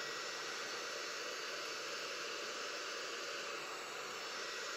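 Steady, even hiss with no distinct sounds in it.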